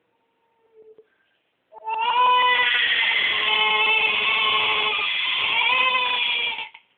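One long wailing cry, about five seconds, held at a fairly steady pitch with a slight waver, heard through a baby monitor's narrow, tinny audio while the crib it watches is empty.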